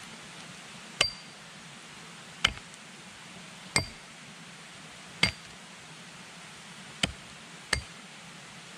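Axe striking an upright wooden pole: six sharp blows at uneven intervals, the last two close together, several leaving a short metallic ring.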